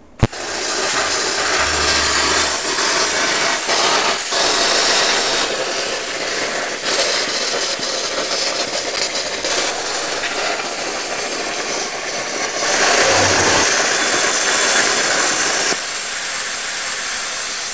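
PT-31 air plasma cutter firing: a sharp crack as the arc strikes, then a loud steady hiss as the torch cuts a circle through sheet metal. The hiss swells for a few seconds past the middle.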